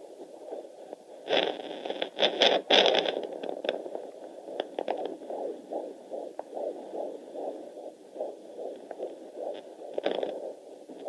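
Fetal Doppler's speaker giving a baby's heartbeat in the womb as a fast whooshing pulse, about two and a half beats a second (around 155 beats a minute). About a second in, loud scratchy crackling lasts for about two seconds.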